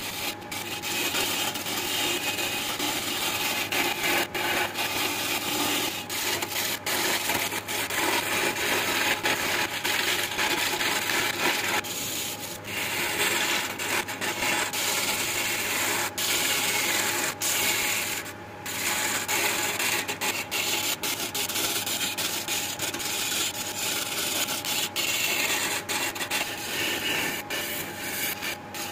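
Wood lathe spinning a jackfruit vase blank while a hand-held turning tool cuts into the wood, a continuous rough scraping cut. The cutting sound eases briefly twice, about 12 and 18 seconds in.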